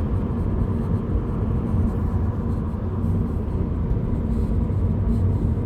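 Cabin noise of a 2014 Scion FR-S coasting off throttle: steady low road and engine rumble, with a buzz from the driver's side door speaker that comes on when the foot is off the gas on rough road.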